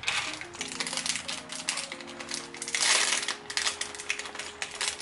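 Thin plastic wrapping crinkling as a crankbait lure is unwrapped by hand, with light clicks and rattles from handling the lures and a clear plastic tackle case, loudest in a burst of crinkling about three seconds in. Soft background music plays underneath.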